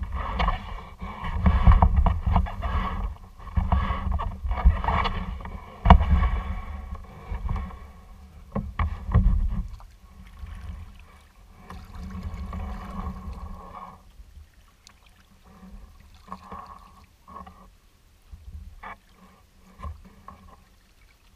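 Water splashing and lapping against a kayak's hull as it is paddled, in uneven surges, with a sharp knock about six seconds in. It is louder in the first half and gives way to sparse small splashes and drips later.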